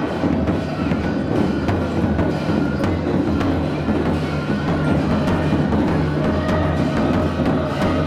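Tibetan festival drumming: a large painted double-headed Tibetan drum beaten with two sticks in a steady run of strokes, with ringing tones sustained over it.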